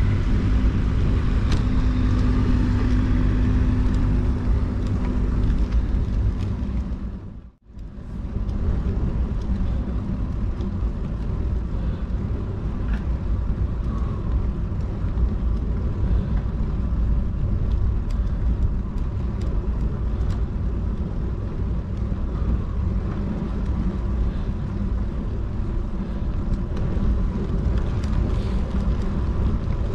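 Steady low rumble of wind and road noise on a bicycle-mounted action camera while riding, with the sound cutting out for a moment about seven and a half seconds in.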